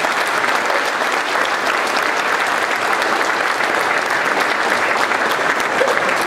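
An audience applauding steadily, many hands clapping at the end of a speech.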